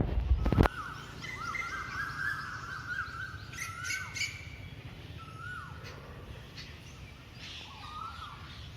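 Birds chirping and calling, a run of short calls that glide up and down in pitch. A loud low rumble at the start cuts off abruptly under a second in.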